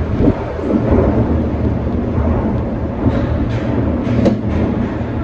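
Shonan Monorail 5600-series suspended monorail car running, with a steady deep rumble from its rubber tyres and running gear inside the enclosed track beam. A few light clicks come about three to four seconds in.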